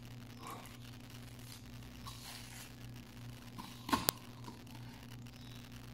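Knife cutting apart raw chicken pieces on a plastic cutting board: faint soft cutting and handling sounds, with one sharp knock of the blade against the board about four seconds in.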